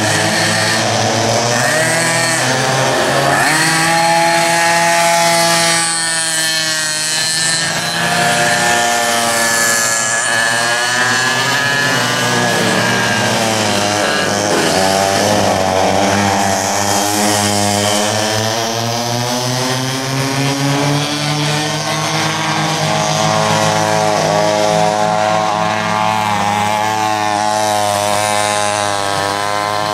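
Several vintage rear-engine racing karts with 6.1 cubic inch two-stroke engines running hard, several engines at once, their pitches sweeping up and down over and over as they rev, back off and pass by.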